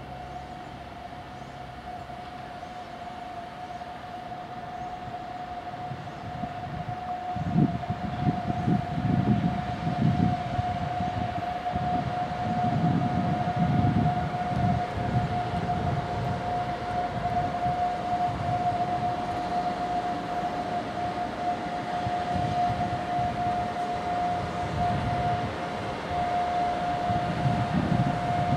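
Siemens EuroSprinter (ES64U4, PKP EU44 'Husarz') electric locomotive drawing slowly in with its passenger train, giving a steady high-pitched whine that holds one pitch throughout. From about seven seconds in, the rumble and clatter of its wheels on the rails grows louder as it comes near.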